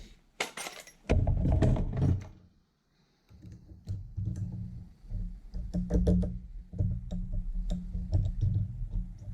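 Rummaging and clunks of hand tools on a workbench, then a run of small clicks and knocks over a low rumble as a small spring is picked out of a motorcycle kickstart detent.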